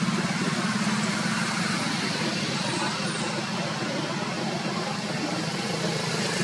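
A motor engine running steadily: a low, even hum with a fine rapid pulse, over a light hiss.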